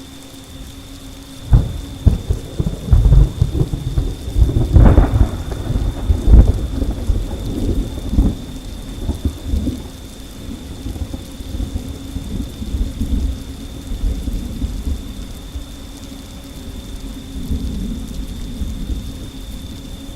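A thunderclap breaks about a second and a half in and rolls off into a long rumble, with rain. A faint steady high tone runs underneath.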